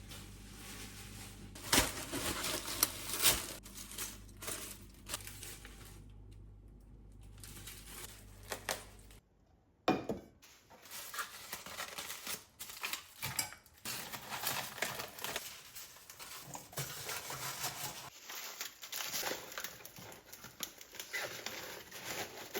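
Kitchen food-prep handling: crinkling and rustling as zongzi ingredients and wrappings are handled, with scattered sharp clicks and knocks of utensils and dishes.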